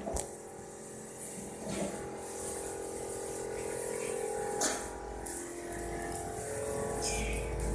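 Electric arc welder crackling and hissing on a steel beam over a steady machine hum, with a few sharp metal knocks. A low engine rumble builds over the last two seconds.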